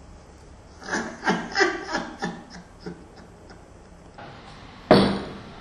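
A person laughing in a run of short, decaying 'ha' pulses, about three a second, for roughly two seconds. Near the end, a sharp knock on a door, the first of a series of knocks answered with 'come in'.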